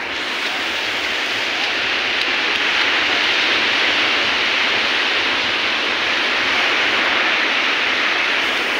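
Ocean surf breaking and washing up the sand: a steady rushing hiss that swells a little over the first couple of seconds and then holds.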